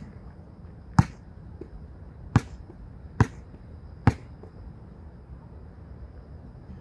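Basketball dribbled on a hard outdoor court before a free throw: five bounces about a second apart, then the ball is held for the shot after about four seconds.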